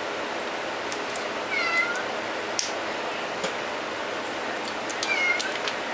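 A cat meowing twice, short rising-and-falling calls about a second and a half in and again near the end, over a steady background hiss. A few light clicks come from the plastic lid of a garlic salt shaker being worked open.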